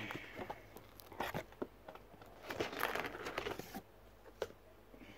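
Hands rummaging in a cardboard shipping box, rustling and crinkling plastic packing with light knocks and ticks. The rustling is busiest around the middle and dies away near the end.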